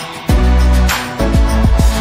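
Background music with heavy bass.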